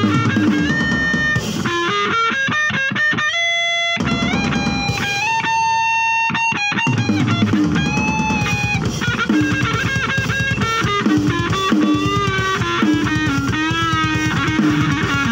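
Electric guitar played through an amplifier: a lead line of held notes with string bends that slide up and back down, over a steady low rhythm.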